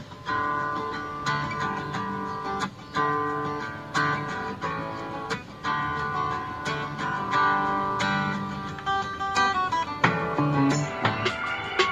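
Guitar music played from a phone through small loudspeakers driven by a PAM8403 mini amplifier board that is submerged in water and still working.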